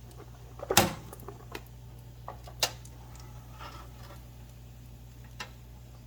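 Fat on freshly roasted pork spareribs crackling, with scattered small pops, over a low steady hum. A sharp clunk, the loudest sound, comes about a second in, and a smaller one near the middle.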